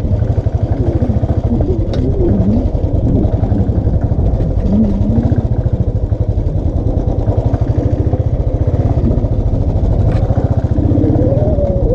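Royal Enfield single-cylinder motorcycle engine running steadily at low speed on an off-road trail, its firing pulses coming quickly and evenly.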